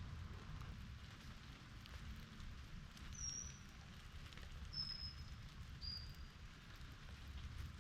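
Steady rain with a low rumble underneath. Three short, high, slightly falling chirps sound about three, five and six seconds in.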